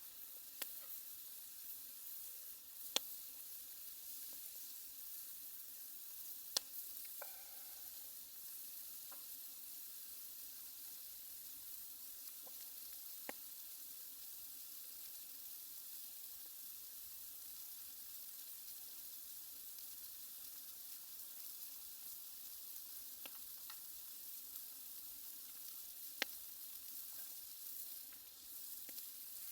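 Thick-cut beef tongue steak sizzling steadily on an iron grill plate over a campfire, with a few sharp pops scattered through.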